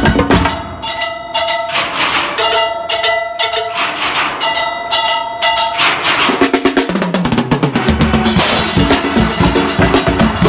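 Steelband engine-room percussion: congas struck with sticks and a drum kit played in a fast, dense rhythm. For the first half, ringing pitched notes sound over the drums.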